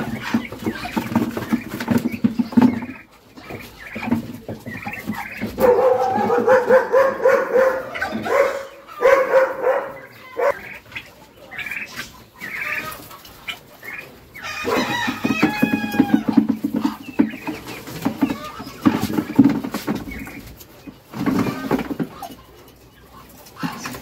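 Chickens clucking in the coop, with a rooster crowing once about fifteen seconds in, its call falling in pitch in steps.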